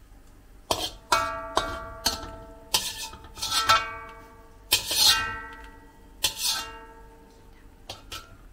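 Background music: short plucked-string notes ringing out in quick, uneven clusters.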